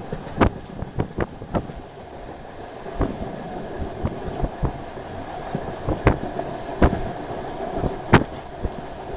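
DR1AMv diesel multiple unit running along the line, heard from aboard: a steady rumble and hum, with irregular sharp knocks of the wheels passing over rail joints.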